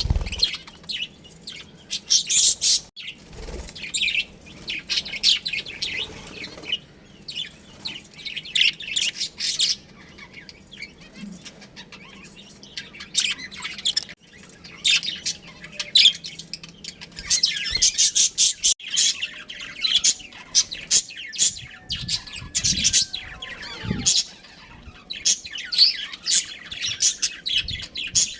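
Budgerigars chirping and chattering continuously, in quick rapid runs of high chirps that come in clusters, with a few soft low thumps.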